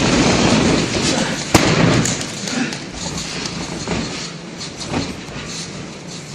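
Wrestlers' bodies thudding and scuffling on the ring mat during a takedown, with one sharp knock about a second and a half in, then quieter shuffling as they grapple on the canvas.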